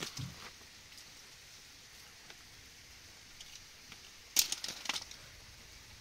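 A soft thump at the start, then a brief cluster of sharp crackles and clicks about four and a half seconds in, over a quiet background.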